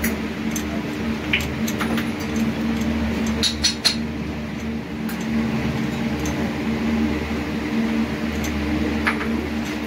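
Steady low hum of a running workshop machine motor. Over it come a few light metallic clinks, the loudest a quick cluster near the middle, as a measuring gauge knocks against the inside of a steel motorcycle cylinder barrel.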